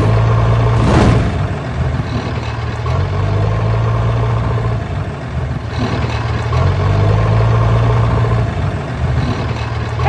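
Tractor engine running steadily with a low hum, easing off and picking up again a few times. A single knock comes about a second in.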